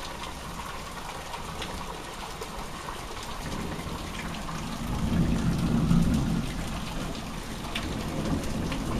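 Thunder rumbling low over steady rain: the rumble swells about three and a half seconds in, is loudest around the middle, and dies away a second or two later.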